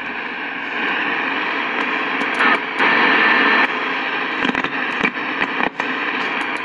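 Harris RF-301 HF transceiver's receiver putting out steady static hiss from its speaker while it is tuned across the 7 MHz band with no station found. The hiss swells for about a second some two and a half seconds in, and a few short clicks come about five seconds in.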